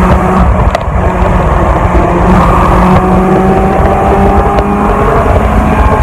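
1992 Honda Civic's four-cylinder engine running steadily while the car drives, its pitch climbing gently partway through, heard inside the stripped-out cabin over road and wind noise.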